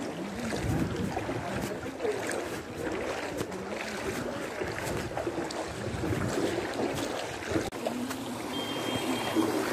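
Shallow brown floodwater on a street sloshing and splashing steadily as someone wades through it, with a brief thin high tone near the end.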